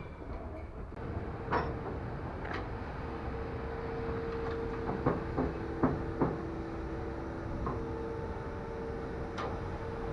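DR class 86 steam tank locomotive standing under steam: a steady hum, broken by scattered sharp metallic knocks and clicks, several of them close together around the middle.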